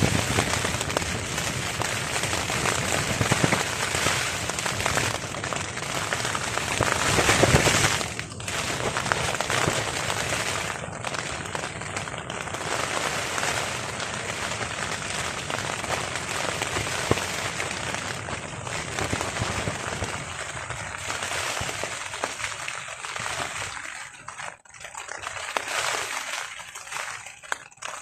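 Rain beating on a tarp in strong wind, a dense steady hiss that swells to its loudest about seven seconds in, then drops off sharply. It thins and turns patchier toward the end.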